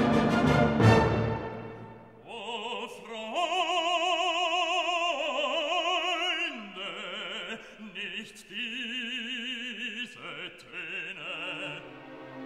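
Background music: a loud orchestral chord with brass dies away in the first two seconds, then an operatic voice sings long held notes with wide vibrato, stepping to a new pitch every second or two.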